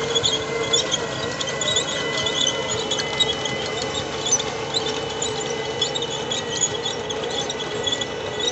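Cat 623K elevating paddle scraper loading: the diesel engine works steadily under load with a steady whine over it, and a continuous crackling rattle of dirt and rocks as the elevator paddles lift the cut into the bowl.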